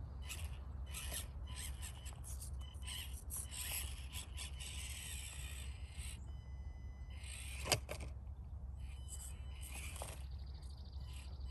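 Axial SCX24 micro RC crawler's small electric motor and gears whining in short, stop-start bursts as it creeps across the course, with a single sharp click nearly 8 seconds in and a steady low hum underneath.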